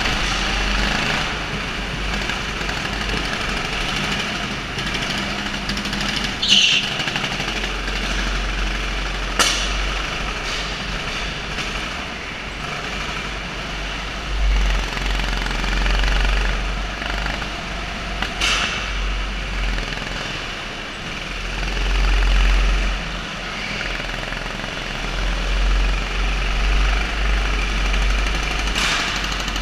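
Go-kart engines running steadily during a race, with a strong deep rumble. A few brief sharp noises break through about 6, 9, 18 and 29 seconds in.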